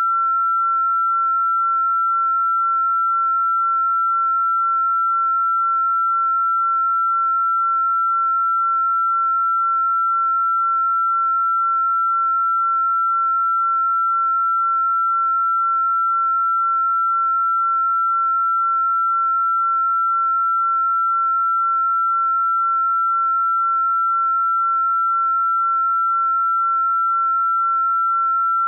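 A single steady electronic sine-wave tone, held at one fairly high pitch without change, played as a sound-therapy 'healing frequency'.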